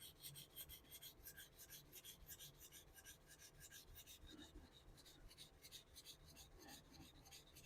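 Straight razor blade being stroked back and forth on a Shapton waterstone: faint, quick rasping strokes, about four or five a second, while the bevel is being set.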